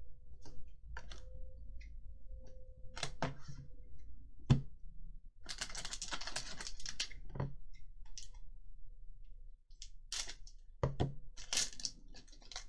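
Trading cards being handled on a tabletop: scattered light clicks and taps, with a couple of seconds of denser rustling about halfway through and again near the end.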